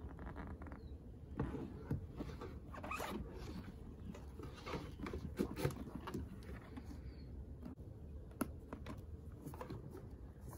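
Vintage Coach leather handbag being handled: smooth leather rubbing and scuffing under the hands in short, irregular strokes, with a sharp click about eight seconds in as the brass turnlock is turned and the flap opened.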